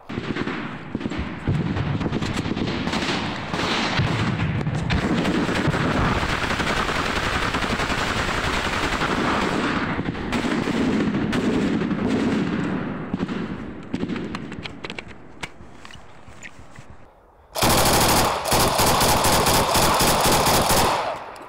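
Machine-gun fire from a trench: a long stretch of dense, continuous gunfire, then a quieter lull, then a loud sustained burst of automatic fire from the gun at the camera position near the end.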